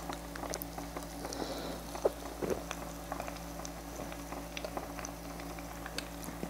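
Fugu karaage deep-frying in hot oil in a small lidded electric deep fryer: a soft, continuous bubbling with many small scattered crackles over a steady low hum.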